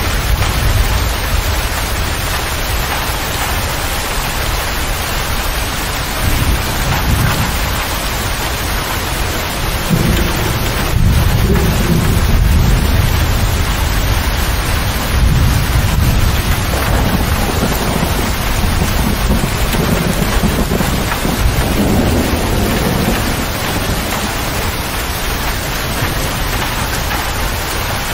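Heavy rain pelting the roof and glass of a motor grader's cab in a steady hiss, with low thunder rumbles swelling a few times, the strongest about ten seconds in.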